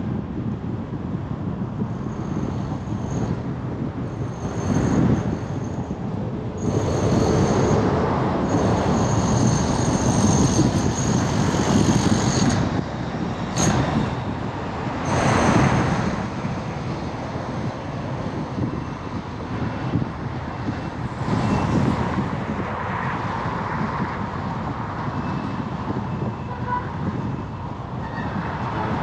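Busy highway traffic: a steady rumble of engines and tyres, with several louder swells as vehicles pass. A high thin tone comes and goes during the first half.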